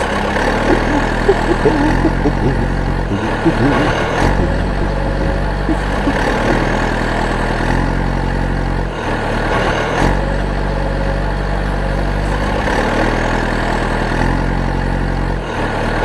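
Tractor engine running steadily with a low, even beat, its pitch stepping up and down a few times.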